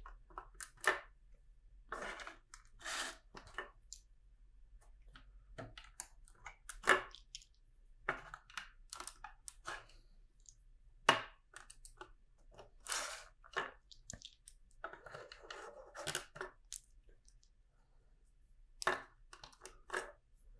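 Small plastic LEGO pieces being handled: scattered sharp clicks and brief rattling, with a longer stretch of rummaging through loose pieces a little past the middle.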